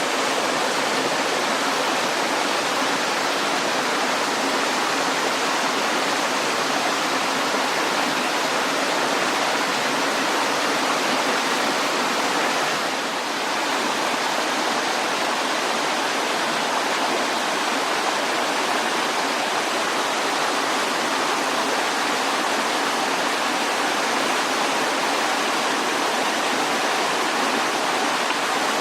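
Mountain valley stream: water rushing with a steady, even sound that dips briefly a little softer about halfway through.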